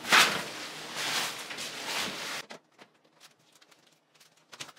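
Paper towels rustling as they are torn off and handled, loudest right at the start, stopping suddenly about halfway through and leaving only faint ticks.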